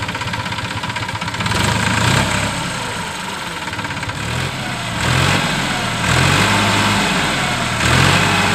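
New Holland tractor's diesel engine running, its pitch and loudness rising in several spells as it drives the hydraulic tipper raising a loaded trolley bed.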